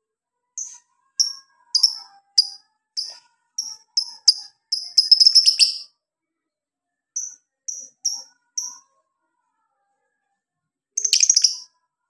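Lovebird giving sharp, high chirps about twice a second, quickening into a fast chattering burst about five seconds in. Four more chirps follow, then another short, rapid burst near the end.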